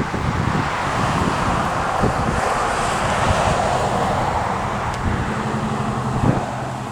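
Road traffic: a car passing with tyre and engine noise that swells and fades, and a steady low engine hum from about five seconds in, with wind rumbling on the microphone.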